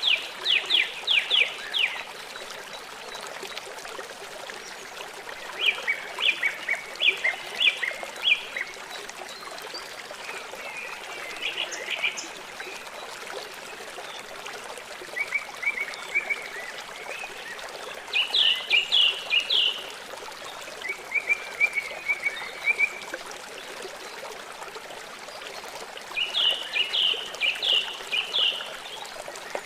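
An animal calling in short bursts of rapid, sharp repeated notes, each burst lasting a second or two and coming every few seconds, over a steady rush of running water.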